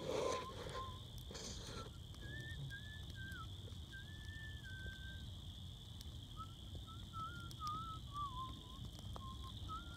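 A person whistling a slow, wandering tune in pure single notes that step and slide up and down. Under it runs a steady high-pitched drone of night insects.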